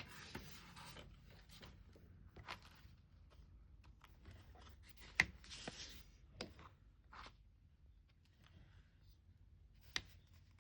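Faint desk-work sounds: short rustles like paper being handled, and a few scattered sharp clicks and taps, the sharpest about five seconds in and another near the end.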